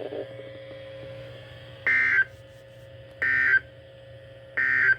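Three short bursts of Emergency Alert System SAME digital data tones from NOAA Weather Radio, each about a third of a second long and about a second and a third apart: the end-of-message code that closes the broadcast warning. A faint steady tone and hiss lie between the bursts.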